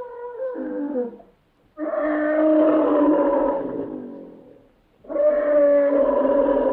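Vintage stock sound-effect recording of elephant roars. One call dies away, then two long pitched roars follow, each about three seconds long, the second still going at the end. The old recording sounds dull, with no high end.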